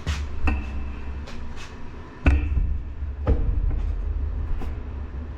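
A series of sharp knocks and clanks, a few of them ringing briefly, over a steady low rumble. The loudest comes a little over two seconds in.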